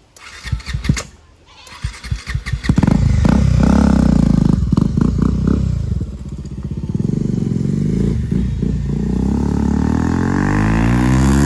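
A motorcycle revving hard and riding close past at speed in a flyby, loud from about three seconds in, easing off briefly midway and building again near the end. A few sharp knocks come before the engine.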